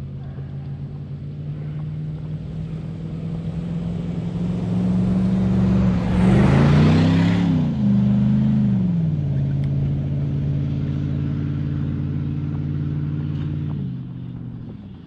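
Engine of the camera vehicle running as it drives along a sand road, growing louder. About halfway through, the engine note rises and falls back, with a brief rush of wind noise. The engine sound drops away just before the end.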